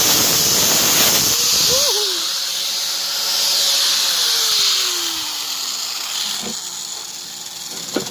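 Angle grinder cutting a slit through a rusted bolt, the cut noise dropping off about two seconds in; its motor then whines steadily and winds down, the pitch falling as the disc slows. A sharp click near the end.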